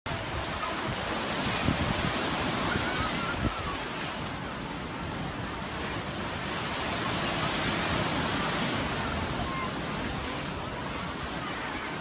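Steady rushing water that cuts in suddenly: a waterfall cascading into terraced pools, then surf washing up a beach.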